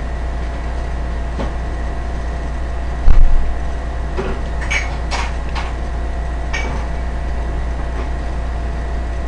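Steady low hum, with one loud thump about three seconds in, then a few light clicks and crackles of paper wrapping being handled on the table.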